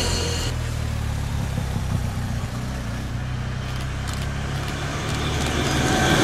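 A passing train's steady low rumble, with a high wheel squeal that cuts off about half a second in.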